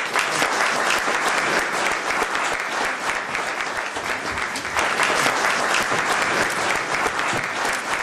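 A crowd applauding, the clapping breaking out all at once and then holding steady as a dense patter of many hands.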